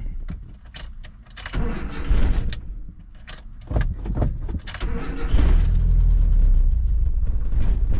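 A Mazda B2000's four-cylinder engine being restarted after stalling. A few clicks come first, then spells of starter cranking and sputtering, and about five seconds in it catches and runs steadily. The owner blames the repeated stalling on the carburetor or fuel supply.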